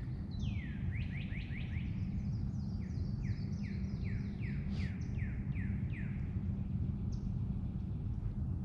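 A songbird singing a long run of quick down-slurred notes, a few a second, fading out about six seconds in, over a steady low background rumble.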